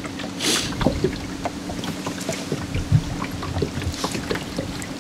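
Bow-mounted electric trolling motor humming steadily, with scattered small clicks from a spinning reel being cranked fast. A brief hiss comes about half a second in.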